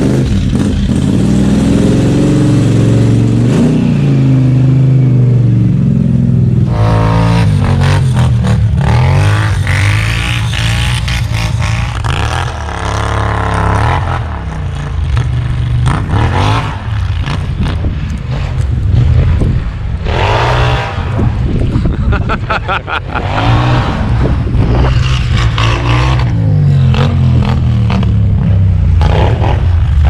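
Polaris Scrambler 1000 ATV engine through a new RJWC Krossflow dual exhaust. It runs steadily for the first several seconds, then is revved again and again in short rises and falls of pitch through the rest.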